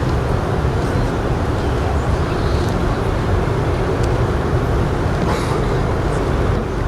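Steady, even rumbling background noise, strongest in the low end, with a few faint brief sounds over it.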